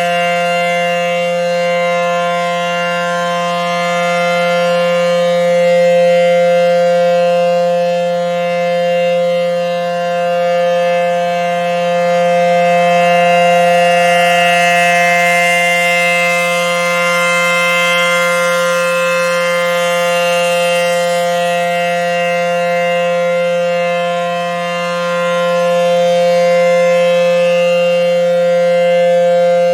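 ACA Howler outdoor warning siren sounding a steady full-alert tone, loud and unbroken in pitch, its volume swelling and fading slowly every several seconds.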